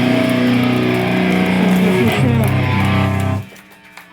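Live rock band playing amplified electric guitar and bass guitar; the music stops abruptly about three and a half seconds in, leaving a faint steady amplifier buzz.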